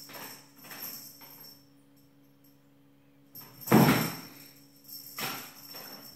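Savannah kitten pouncing and scrabbling after a feather toy in short bursts, with one loud thump about four seconds in.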